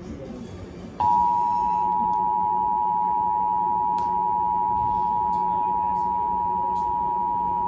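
Emergency Alert System two-tone attention signal, two steady tones sounding together, starting about a second in and holding unchanged. It is the alert tone that comes before a severe thunderstorm warning message.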